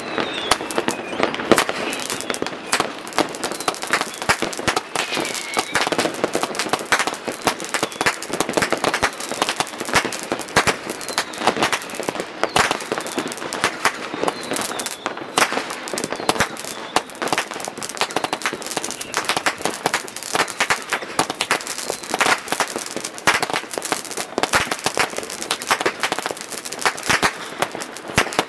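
New Year's Eve fireworks and firecrackers going off many at once: a dense, unbroken stream of sharp bangs and crackles, with now and then a whistle gliding in pitch.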